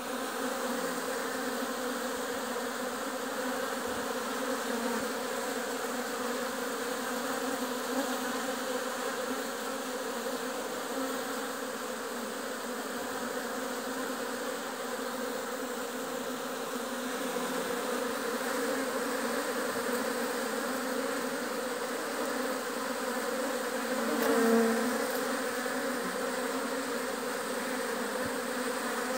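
A dense cluster of honeybees buzzing steadily as a large colony. The buzz swells briefly about three quarters of the way through.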